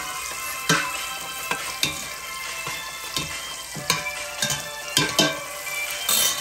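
Chopped garlic sizzling in melted margarine in a stainless steel pot as it browns. A metal spoon stirs it, scraping and clinking against the pot about nine times.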